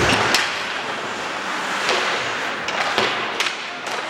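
Ice hockey game sounds in the rink: a steady rush of noise cut by sharp clacks of sticks and puck. There is a heavy knock right at the start, then scattered clacks, a few of them close together later on.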